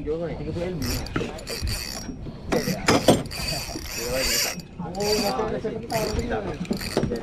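Spinning reel being cranked in repeated short bursts as a light jigging rod is worked, the reel's gears turning and stopping again and again.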